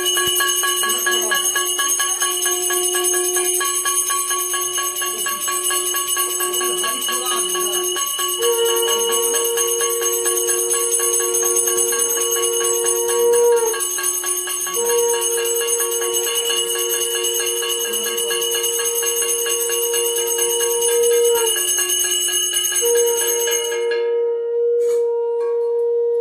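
A puja hand bell rung continuously in the aarti, its ringing stopping about two seconds before the end. From about a third of the way in, a conch shell is blown in three long, steady blasts, each lasting several seconds.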